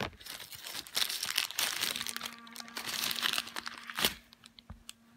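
Black plastic mailer bag crinkling and rustling as hands handle and open it, with a sharp click about four seconds in.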